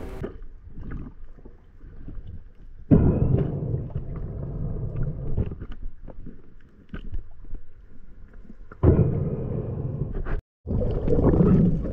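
Low rumbling water noise and small knocks on an underwater camera housing during a diver's ascent, swelling suddenly about three seconds in and again near the end, with a brief cut to silence shortly before the end.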